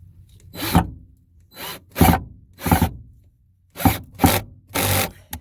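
About seven short scraping or rubbing strokes on wood, unevenly spaced, ending in a sharp click.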